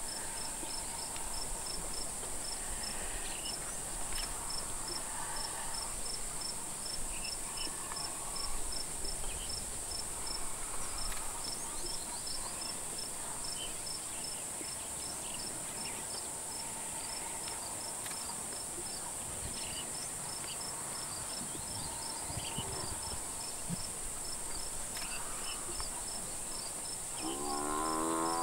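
Insects keep up a steady high drone and a regular repeated chirp throughout. About a second before the end, the Cape buffalo being pulled down by lions lets out one loud bellow, the loudest sound here.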